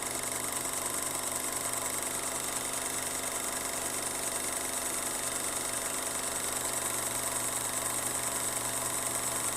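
Steady machine hum with several constant tones under an even hiss, unchanging throughout.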